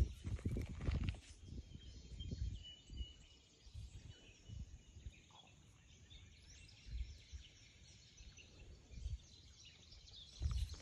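Outdoor ambience: irregular low rumbles of wind buffeting the microphone, with faint bird chirps now and then.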